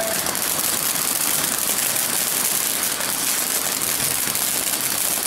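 Small firework burning, giving off a steady crackling hiss of sparks.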